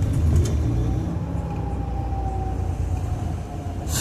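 Car driving, with a steady low road and engine rumble. A faint thin whine runs through the middle, and a short sharp noise comes near the end.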